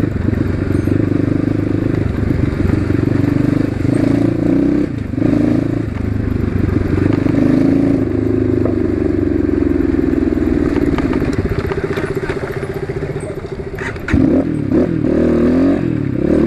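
Asian Beast 250 dirt bike's engine running under way through its loud exhaust, the note rising and falling with the throttle. It eases off about 13 seconds in and picks up again just after.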